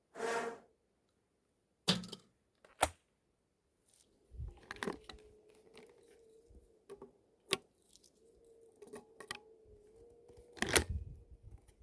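Scattered sharp clicks and clacks of the Baikal MP-27EM over-and-under shotgun being handled, the loudest clack near the end. A faint wavering tone runs under the clicks through most of the second half.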